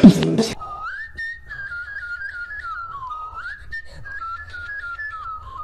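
A short tune whistled in a single clear tone, stepping and sliding between notes, after a burst of beatboxing cuts off about half a second in.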